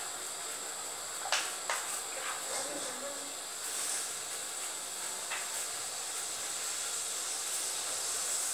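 Steady hiss with a few light clicks and knocks, about a second in and again near the middle.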